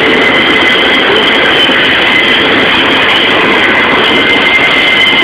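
Union Pacific double-stack container freight train's well cars rolling past close by, a loud steady rumble of wheels on rail with a steady high-pitched wheel squeal over it.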